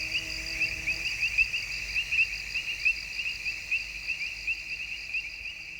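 Wetland chorus of crickets: a steady, high-pitched chirping of several chirps a second.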